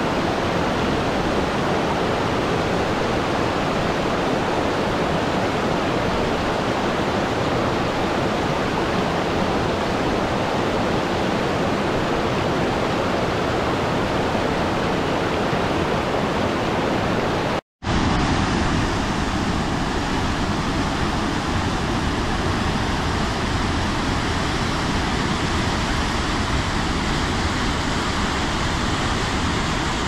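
Steady rush of flowing water from a mountain stream and waterfall. It cuts out for a split second a little past the middle, then resumes with a slightly different texture as another stretch of rushing water.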